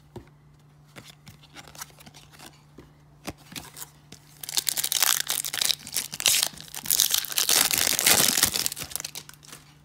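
A 1994 Topps Series 2 wax pack's waxed-paper wrapper being crinkled and torn open by hand. The loud crackling starts about four seconds in and lasts about five seconds, after a few faint clicks of cards being handled.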